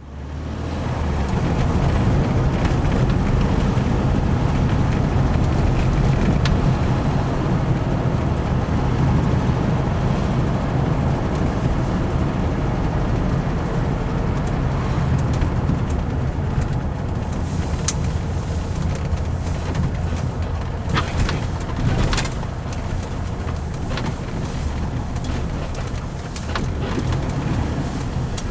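Air-cooled VW Beetle flat-four engine running with a steady low rumble, with a few sharp clicks or knocks in the second half.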